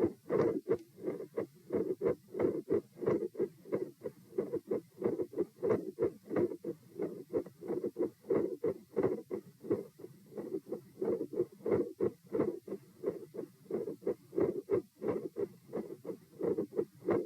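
Human heart sounds heard through a stethoscope over the pulmonic area: a steady, regular lub-dub of the first and second heart sounds.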